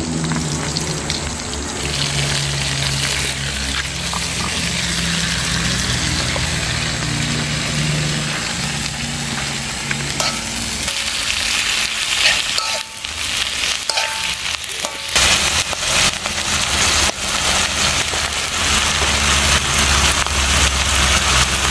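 Leafy greens frying in hot oil in an aluminium wok over a wood fire: a steady sizzle that starts about two seconds in. In the second half a spatula scrapes against the wok as they are stirred.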